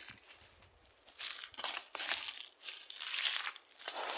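Crunching and rustling of dry leaves and twigs underfoot on a forest floor, in uneven bursts.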